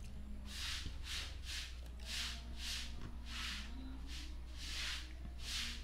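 Chewing a mouthful of rice and fried fish close to the microphone: a run of about ten chews at roughly two a second.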